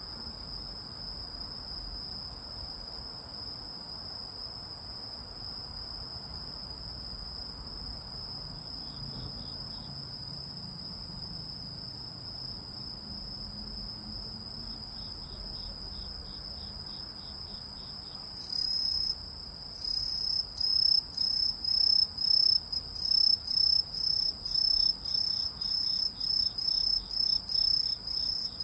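A singing insect's high-pitched song: a steady unbroken trill, which about two-thirds of the way through turns into louder, regular chirps at about two a second.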